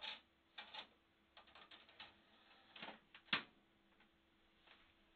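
Faint plastic clicks and taps of a CD being set into a desktop PC's open optical-drive tray, with the loudest click a little over three seconds in as the tray is pushed shut. A faint steady hum runs underneath.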